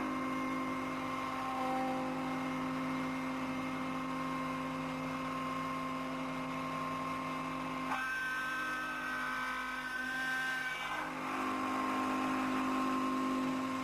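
Workshop machinery running with a steady whir made of several held tones; the pitch of the tones shifts about eight seconds in and settles back a few seconds later.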